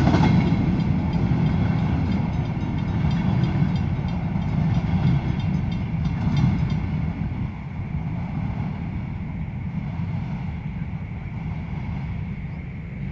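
Empty covered hopper cars of a freight train rolling away on the rails: a low rumble with a few clanks, fading steadily as the train recedes.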